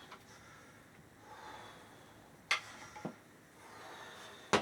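Breathing with a few sharp knocks: one about halfway, a smaller one just after, and a loud one at the end, as frame pieces being glued are handled and fitted together.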